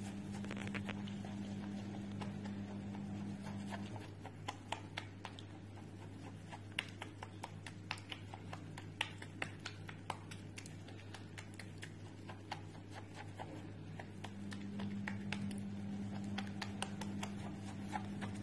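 Light irregular patter and small clicks of bath water and foam as a hairless cat paws through a bubble bath, over a steady low hum.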